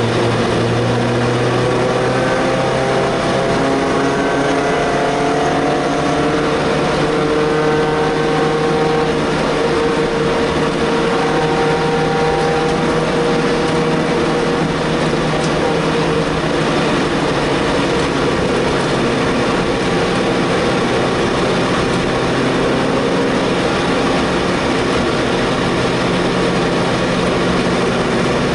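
Race car's four-cylinder engine heard from inside the cabin, running steadily at part throttle at safety-car pace, its pitch drifting gently up and down with small throttle changes.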